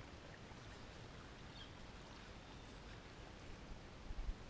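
Quiet outdoor ambience on open water: a low, steady rumble with faint hiss, broken by a few low thumps about four seconds in.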